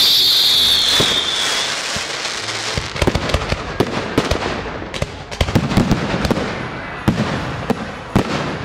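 Fireworks display: a high shrill hiss fades out over the first couple of seconds, then a rapid, irregular series of bangs and crackles from bursting aerial shells, with a couple of sharper bangs near the end.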